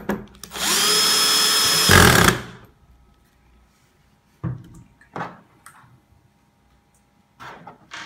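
A power screwdriver spins up and runs steadily for about two seconds, driving in a screw, then stops. A few light knocks and clicks follow.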